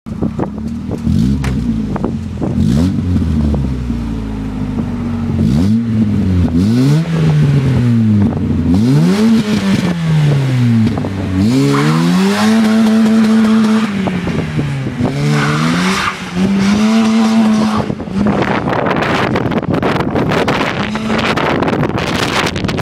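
Opel C20XE 2.0-litre 16-valve four-cylinder engine breathing through a Group A four-into-two-into-one header, Group A cat-back exhaust and open air filter, revved up and down in repeated quick blips and held at high revs twice. From about two-thirds of the way in, a loud rushing wind noise on the microphone takes over.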